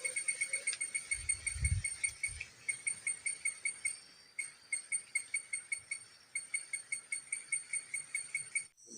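An animal calling in rapid, evenly spaced high chirps, about six a second, in runs broken by short pauses. A low thump comes about a second and a half in.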